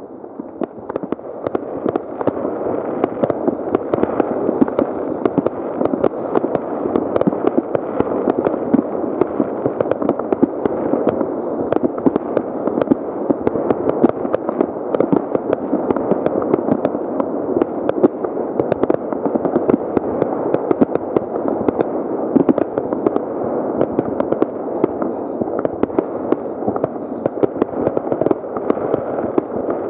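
Fireworks rockets and firecrackers going off from many places at once, far off: a dense, unbroken barrage of overlapping bangs and crackles.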